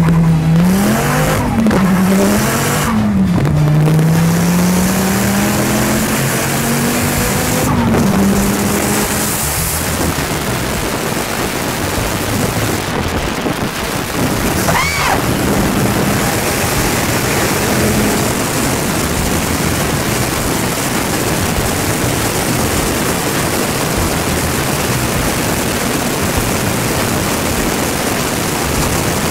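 Twin-turbo Dodge Viper V10 at full throttle, its note climbing and dropping at each gear change for the first several seconds, then giving way to a steady heavy rush of wind over the open cockpit at close to 200 mph.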